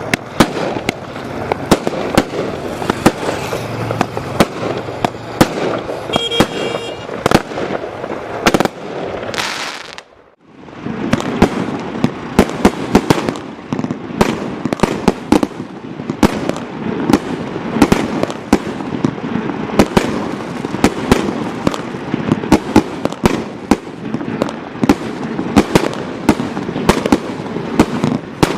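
Primed 'Full House' firework going off: a dense, continuous run of rapid cracks and bangs, breaking off for a moment about ten seconds in and then carrying on just as thick.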